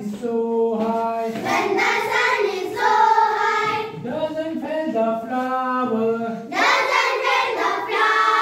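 A group of children singing a rhyme about watering flowers together in chorus, unaccompanied.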